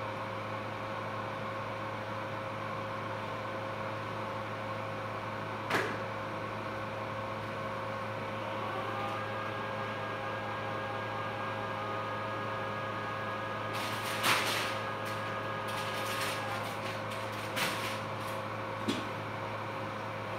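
Steady hum and tones of operating-room equipment, with a phacoemulsification machine's tones. From about eight seconds in, a higher tone sets in and slowly rises in pitch, the aspiration tone of a phaco machine as vacuum builds at the tip. Four short, sharp clicks are spread through the second half.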